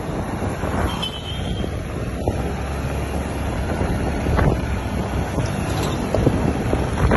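A motorbike running steadily along a road, with wind buffeting the phone's microphone.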